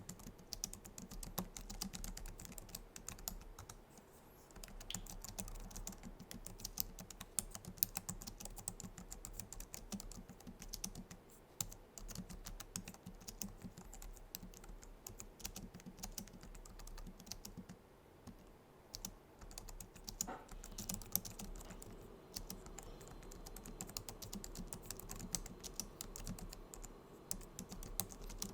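Typing on a Logitech MX Keys keyboard: a steady, fast stream of low-profile scissor-switch keys clicking, with a few brief pauses.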